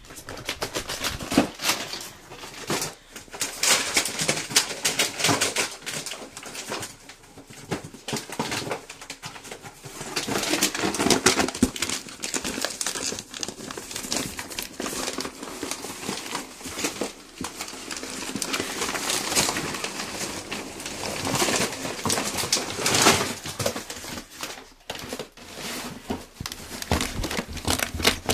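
Miniature pinschers rummaging in a cardboard box of plastic dog-snack packets: the packets crinkle and rustle continuously while the dogs nose and dig, with scraping against the cardboard.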